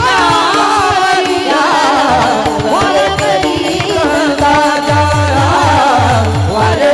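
Marathi devotional kirtan music: a voice sings a long, gliding, wordless melodic line over held instrumental notes. Hand-drum strokes fall away at the start and come back about four and a half seconds in.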